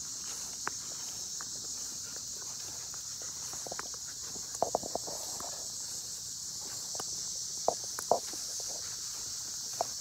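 A steady, high insect chorus, with a few short, sharp sounds around dogs playing on grass, clustered about halfway through and again about eight seconds in.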